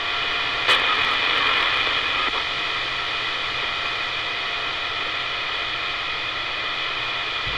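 CB radio receiver hissing with steady static between transmissions, a few faint steady tones running through the noise and a short click about 0.7 s in.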